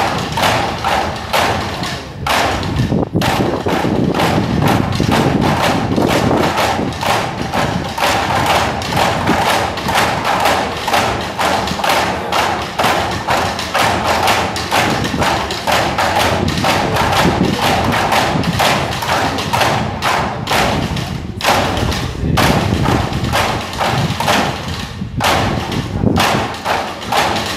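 A group of young drummers playing side drums together in a fast, steady rhythm of many close strokes.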